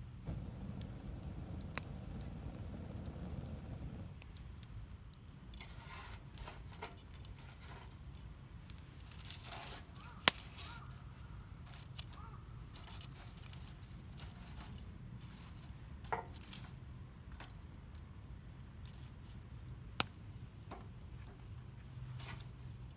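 Intermittent rustling and scraping of hands preparing food, with four sharp clicks or knocks, the loudest about ten and twenty seconds in.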